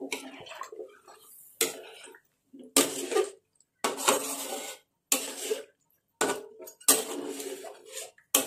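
Metal spatula scraping and knocking against a large metal wok while stirring duck pieces in sauce, about nine strokes roughly once a second. Several strokes leave the wok ringing briefly.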